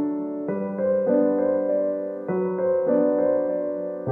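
Background music: slow, sustained electric piano chords that change every half second to a second.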